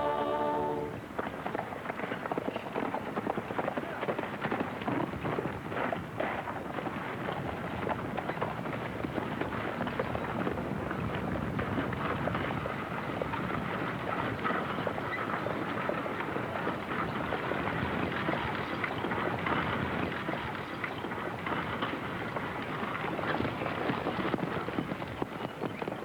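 Horses galloping: a dense, continuous clatter of hoofbeats from several horses. A sung final note ends about a second in.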